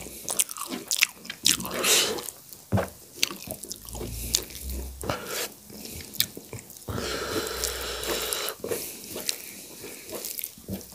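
Close-miked wet chewing of a handful of sag bhat (rice mixed with cooked greens), with irregular lip-smacks and mouth clicks. A longer, steadier breathy sound comes about seven seconds in and lasts a second and a half.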